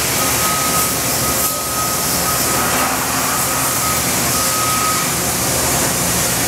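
OKK HM100S horizontal machining center milling a metal part under high-pressure through-spindle coolant: a loud, steady spray hiss with machine noise beneath, and a thin high steady tone that stops about five seconds in.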